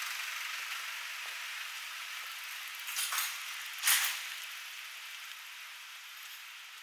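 City street ambience: a steady hiss of traffic that slowly fades, with two short, louder hisses about three and four seconds in.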